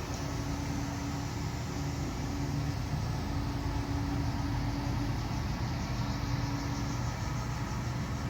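Weiler Dominator industrial meat mixer grinder running steadily, its motor and drive giving a continuous hum.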